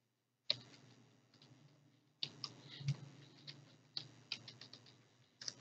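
Computer keyboard keys clicking as code is typed, faint: a single keystroke about half a second in, then a run of irregular keystrokes from about two seconds in.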